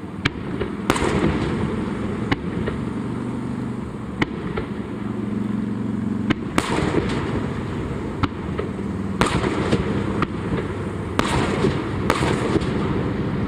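Aerial fireworks shells bursting one after another: irregularly spaced sharp bangs, some followed by a spreading crackle.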